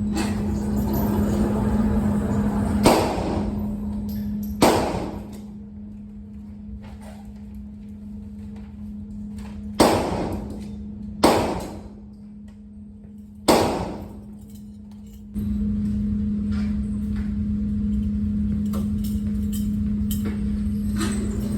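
Five gunshots at an indoor firing range, each a sharp crack with a short echoing tail, irregularly spaced over about ten seconds. A steady low hum runs beneath them.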